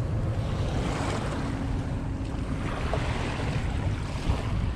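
Wind buffeting the microphone over small waves lapping on a pebble shoreline.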